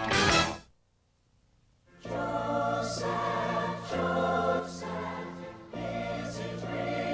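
Trailer music ends within the first second and is followed by about a second of silence. Then a choir starts singing over sustained instrumental chords, about two seconds in.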